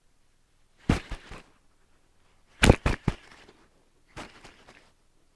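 Three short clusters of sharp knocks and splashing, spaced about a second and a half apart and loudest in the middle, from a hooked fish thrashing during the fight.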